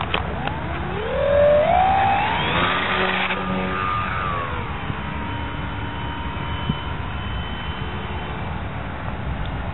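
Electric motor and propeller of a foam RC biplane throttling up for takeoff. The whine rises in pitch over about two seconds, then holds a steady high tone that eases slightly as the plane climbs away, over a low rumble.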